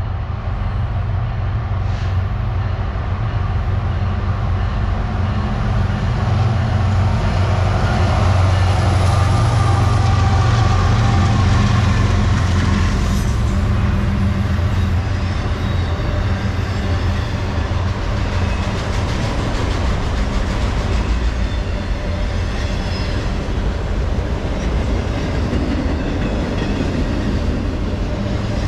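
A long freight train passes close by. Its three diesel locomotives approach and go by, loudest about a third of the way in, then a long string of loaded autorack cars rolls past with a steady rumble and clatter of wheels on the rails.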